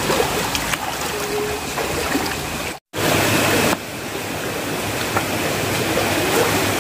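Stream water running steadily, cutting out for an instant about three seconds in and coming back slightly louder for a moment.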